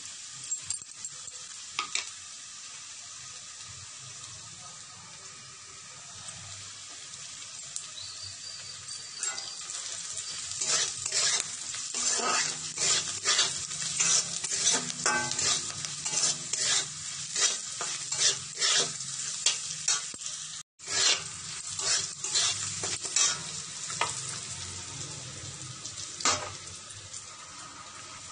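Sliced onions and spices sizzling in hot oil in an aluminium kadai, stirred with a metal spatula that scrapes and knocks against the pan. The scraping strokes come thick and fast through the middle stretch, over a steady frying hiss.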